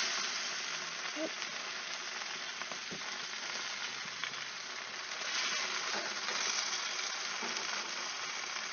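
Bacon-wrapped chicken sizzling steadily on a hot gas barbecue grill, with a few light clicks as the pieces are turned with metal tongs.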